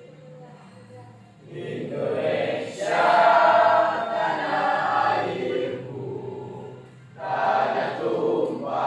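A class of high-school students singing an Indonesian national song together in unison. The singing comes in after a quiet second or so, eases off briefly, then comes back in loudly near the end.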